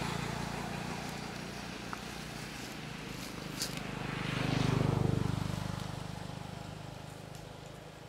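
A motor vehicle driving past, its engine hum and tyre noise swelling to a peak about five seconds in and then fading away.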